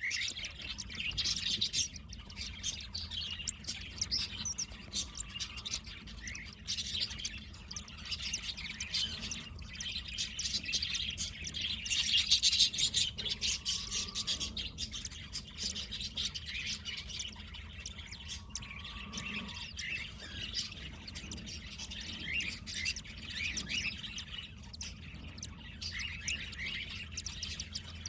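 Many small birds chirping at once: a dense, continuous chatter of quick, high chirps overlapping one another, loudest a little under halfway through.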